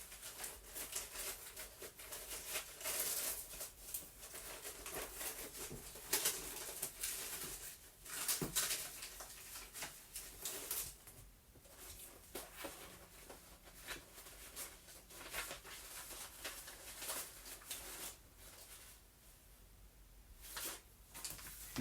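Paper rustling and shuffling in irregular spurts as loose journal papers and stamped scraps are handled and sorted, with a few soft taps on the table.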